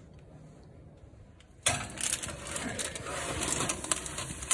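A parchment-lined metal baking sheet is slid onto an oven rack, starting suddenly about a second and a half in: metal scraping and rattling on the rack with paper rustling and sharp clicks.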